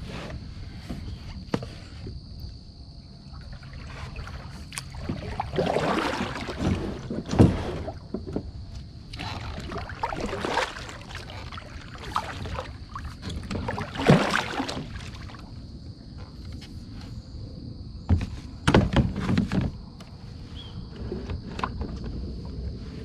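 Kayak paddling: a double-bladed paddle dipping and swishing through the water in uneven strokes, with a few sharp knocks from the paddle or gear against the plastic hull. A steady high-pitched tone runs underneath.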